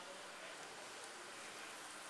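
Pre-boiled chicken pieces frying in a little oil in a nonstick pan: a faint, steady sizzle.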